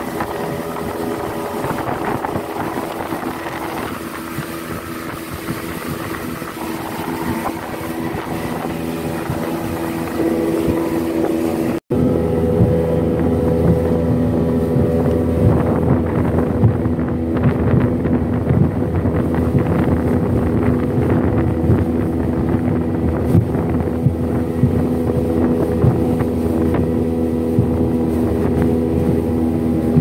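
A speedboat's 75-horsepower outboard motor running steadily at cruising speed, a constant engine hum with rushing wind and water. The sound drops out for an instant about twelve seconds in, then returns more muffled, with a stronger low hum.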